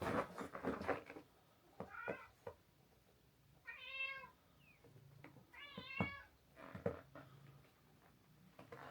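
A domestic cat meowing several times, about one call every two seconds, with a few soft knocks in the first second.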